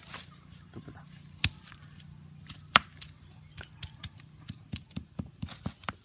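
Stone pestle pounding garlic cloves on a flat rock: sharp knocks, two loud ones in the first half, then a quicker run of lighter strokes, about three or four a second, through the second half.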